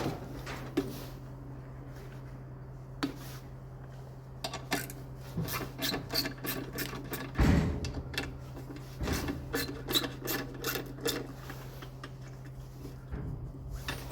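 Ratcheting 13mm socket wrench clicking in quick runs as bolts are undone on a scarifier, with a few heavier knocks of metal on metal, over a steady low hum.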